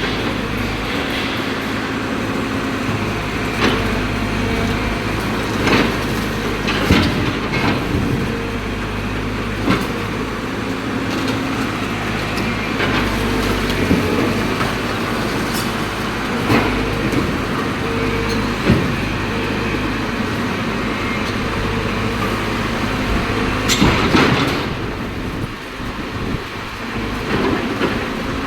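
Caterpillar excavator's diesel engine running steadily under load, with irregular knocks, scrapes and crunches of concrete being broken apart, the loudest crunch near the end.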